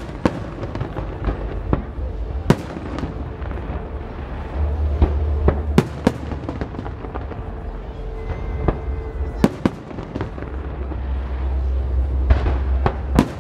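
Aerial fireworks bursting overhead: sharp bangs every few seconds, each trailing off with a short echo, over a steady rumble and crackle of the display.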